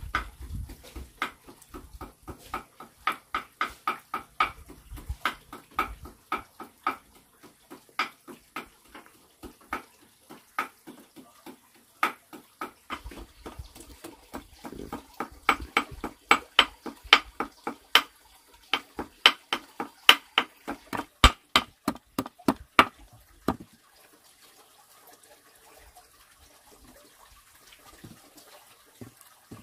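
A run of irregular sharp knocks and clatters, one to three a second, that stops a few seconds before the end.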